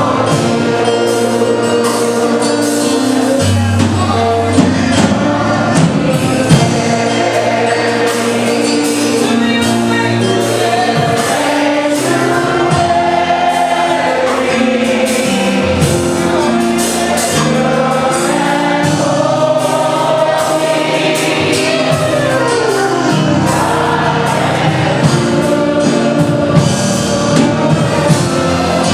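Gospel choir singing with instrumental accompaniment: a moving bass line and a steady beat.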